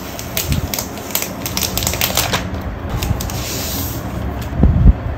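Thin plastic protective film being peeled off a Mac Mini, crackling and crinkling in quick sharp clicks, then a hiss as the sheet slides free. A low thump near the end.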